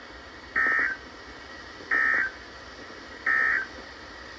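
NOAA Weather Radio SAME end-of-message code: three short bursts of digital data tones, about a second apart, which signal the end of the alert message.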